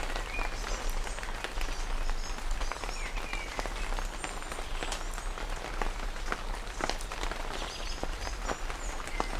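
Steady rain falling, with individual drops tapping sharply on a surface throughout.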